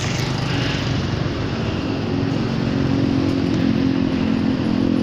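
Motor scooter engine running close by, a steady hum that grows slightly louder.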